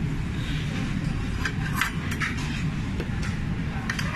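Restaurant room noise: a steady low rumble with a few brief, sharper noises scattered through it.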